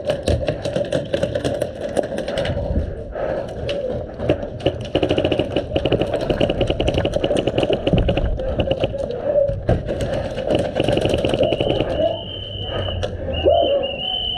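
Airsoft guns firing rapid full-auto bursts, a fast even run of clicks, with distant voices behind.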